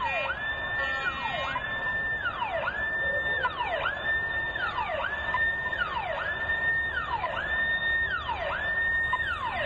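Siren wailing: a clean tone rising quickly, holding briefly at the top, then sliding down, repeated evenly a little faster than once a second.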